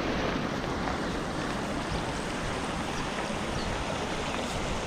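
Steady rush of creek water spilling over a low weir into a pool.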